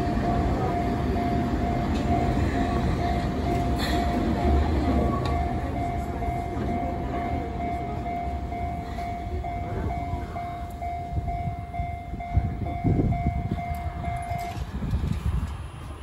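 Japanese level-crossing alarm ringing with a steady, repeating electronic tone over the low rumble of a passing Enoden train, which fades as the train pulls away. The alarm cuts off near the end as the crossing clears.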